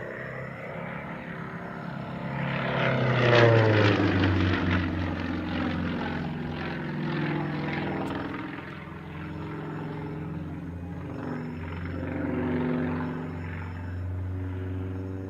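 A propeller aircraft's engine flying past, growing loud about three seconds in with its pitch dropping as it passes, then droning on and rising again briefly near the end.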